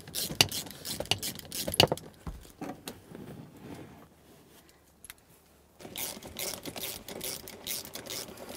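Socket ratchet on an extension loosening a 12 mm seat mounting bolt: metallic clicks and rattles of the tool, a short pause about halfway, then a fast run of ratchet clicks near the end.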